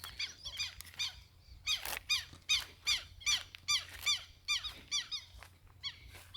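An animal giving a rapid series of squeaky calls, about two or three a second, each note sliding down in pitch.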